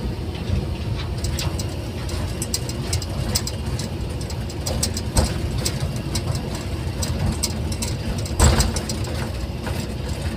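Sany hydraulic excavator's diesel engine running steadily as the machine travels with concrete pipes loaded in its bucket, with scattered clicks and knocks and one louder knock about eight and a half seconds in.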